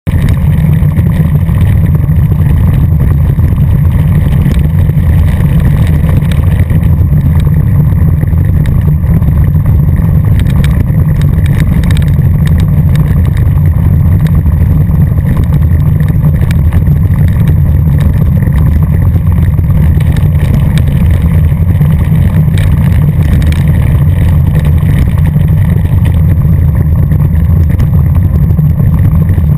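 Wind buffeting the camera's microphone during a fast descent on a loose gravel road: a loud, steady, deep rumble, with the crunch and rattle of tyres over gravel.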